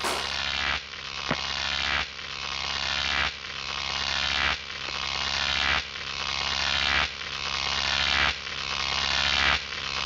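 Looped electronic outro sound: a buzzing hiss that swells up and cuts off sharply about every one and a quarter seconds, over a low steady hum.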